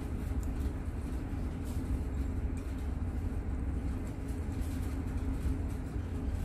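A steady low rumble of background machinery, with a few faint clicks from a glass beaker of solution being swirled by hand.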